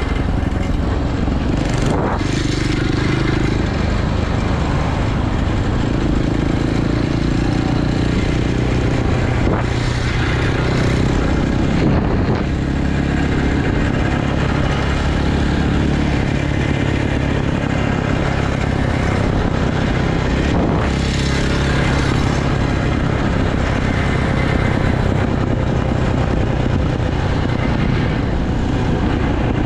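Dirt bike engine running under way, its note shifting up and down a few times with the throttle.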